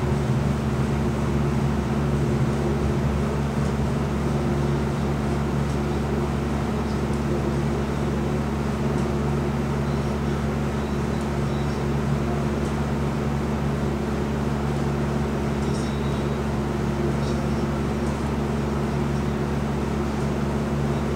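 Steady low mechanical hum made of several constant low tones, unchanging in level and pitch.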